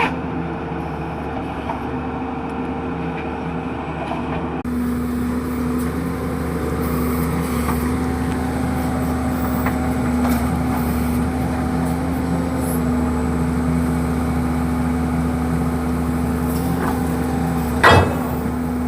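Diesel engine of a ZT-21 horizontal directional drilling rig running steadily, its note lifting slightly about five seconds in. A single loud metallic knock near the end.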